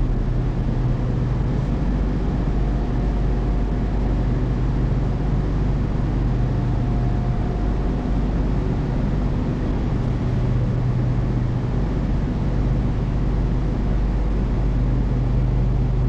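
Steady hum inside an SRT Red Line electric commuter train at a station platform, with a low drone and faint held tones from its electrical equipment, one of which comes and goes.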